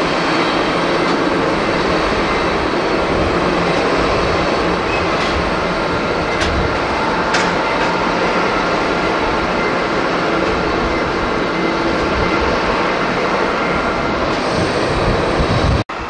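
Jet airliner's engines running loudly and steadily on the runway: a dense rumble with a faint high whine. The sound stops abruptly just before the end.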